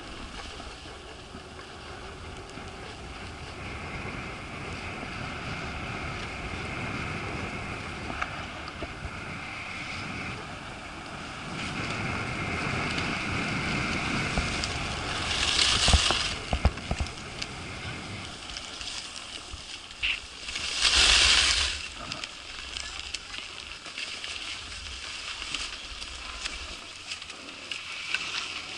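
Skis running over groomed snow with wind rushing on the microphone, a steady hiss that grows louder partway through. Two short, loud scraping hisses about halfway through and some five seconds later, as ski edges skid across the snow braking toward a stop.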